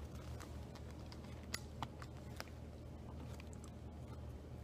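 Faint eating sounds: a plastic fork clicking and tapping against a takeout container a few scattered times, with quiet chewing, over a steady low hum.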